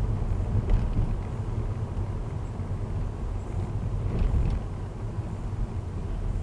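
Car driving on a rough, potholed road, heard from inside the cabin: a steady low rumble of tyres and suspension, with a few brief clatters from bumps about one second in and again about four seconds in.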